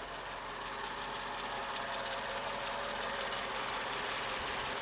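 Mercedes-Benz E55 AMG's supercharged 5.4-litre V8 idling steadily, with a light clicking tick in it that the owner is unsure is normal.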